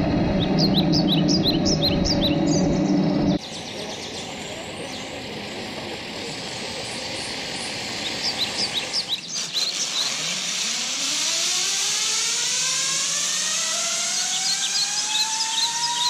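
Birds chirping over a steady low hum, then, after cuts, a hiss with a few more chirps. In the last few seconds a whine rises steadily in pitch, the sound of a pulley trolley speeding up along a steel cable.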